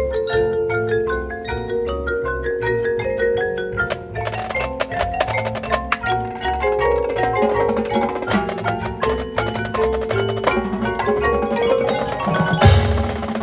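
Marching band front ensemble playing a mallet percussion passage, marimbas and other mallet keyboards striking quick runs of notes over low repeating bass notes. The struck notes grow denser about four seconds in, and near the end a loud low hit with a crash comes in.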